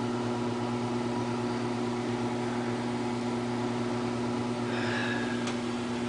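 Steady low electrical hum with an even airy whoosh: a window air conditioner's fan running.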